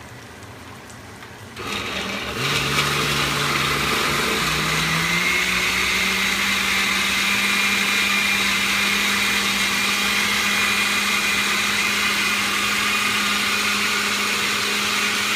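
Countertop blender running, pureeing tomatoes, tomatillos and dried chiles into salsa. It starts about a second and a half in, its motor pitch climbs over the next few seconds, then runs steady until it switches off and winds down at the end.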